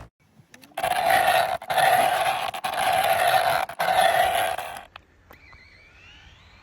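RC car sound module playing a loud, rough engine growl through its speaker in four blocks of about a second each, with sharp short breaks between them, stopping at about five seconds. After that a faint rising whine follows.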